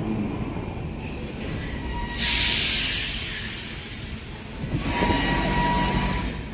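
Metrowagonmash 81-series metro train rolling in along the platform and braking to a stop, with a loud hiss about two seconds in and a steady squeal from the wheels and brakes near the end as it halts.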